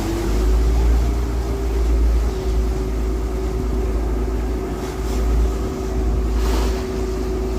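A large vehicle's engine running: a deep steady rumble with a steady hum above it, and a couple of brief swishes partway through.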